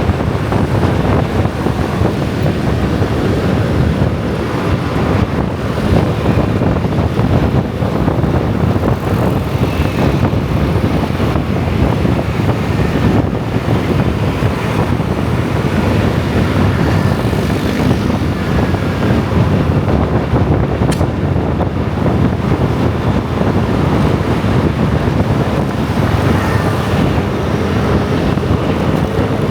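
Dense motor scooter traffic: a loud, steady rumble of many small engines and tyres, with wind buffeting the microphone.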